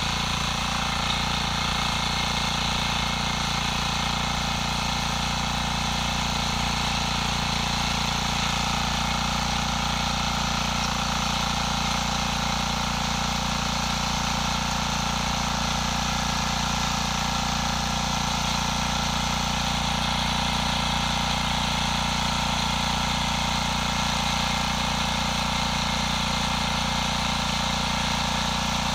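Husqvarna 545D walk-behind tiller engine running steadily while its rotary tines dig into hard, compacted red soil.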